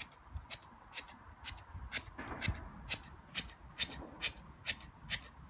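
A person's rapid, rhythmic forceful breathing: short, sharp puffs of breath about three a second, the cleansing breath of a meditation exercise.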